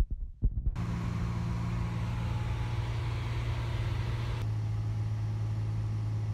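A few knocks, then the steady drone of a Cessna 182's engine and propeller starts abruptly almost a second in. About four and a half seconds in, the hiss drops and the drone's pitch settles slightly lower.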